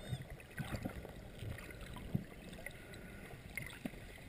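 Underwater sound heard through a GoPro housing: a steady watery hiss with scattered sharp clicks, the loudest about two seconds in, and a few faint short chirps.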